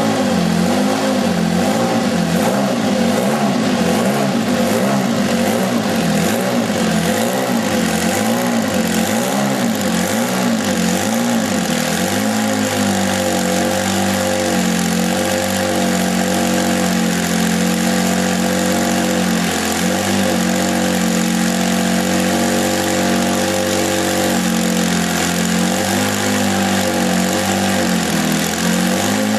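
A 1985 Ferrari 156/85 Formula 1 car's 1.5-litre twin-turbo V6 running at low revs. For about the first twelve seconds the revs swing up and down about once a second; after that the engine holds a steadier idle with a few brief dips.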